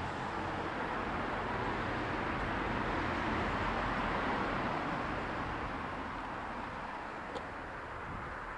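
Road traffic: a steady tyre-and-engine hiss that swells and then slowly fades as a vehicle goes by, with one faint click near the end.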